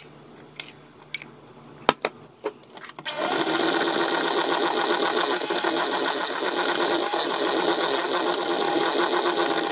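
A few light clicks and knocks of a utensil against a bowl. Then, about three seconds in, an electric mixer starts up and runs steadily, beating the first spoonfuls of flour, cocoa and baking powder into cake batter.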